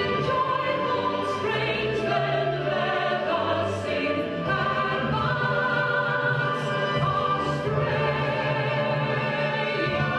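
A national anthem played as an orchestral recording with a choir singing.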